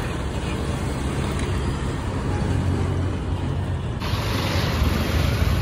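Street traffic with a city bus's engine running low as the bus goes past. About four seconds in there is a cut to more road traffic noise.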